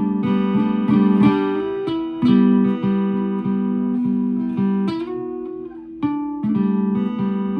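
Acoustic guitar played solo: chords and notes struck one after another and left to ring, the sound fading about five seconds in before a fresh chord is struck about a second later.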